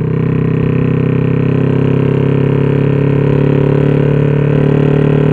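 Bored-out (62 mm) Honda XRM fi single-cylinder four-stroke motorcycle engine running under steady throttle on the move, its pitch and loudness climbing slowly. The engine is running on an RS150 ECU.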